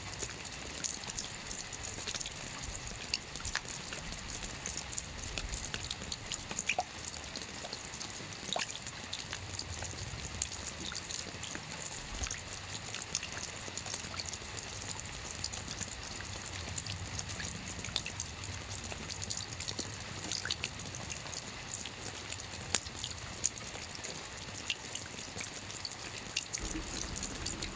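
Steady rain, a constant hiss with many small drops clicking and ticking at random. Near the end a low sustained tone comes in under the rain.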